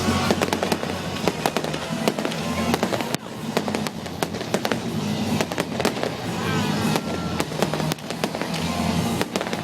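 Fireworks display: many fireworks banging and crackling in quick succession, over loud music with a steady bass.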